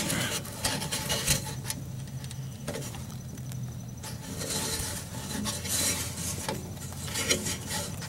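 Fingers rubbing and scraping on a furnace igniter's rubber wire boot and its rusty sheet-metal mounting bracket, with scattered small clicks and a faint steady low hum underneath.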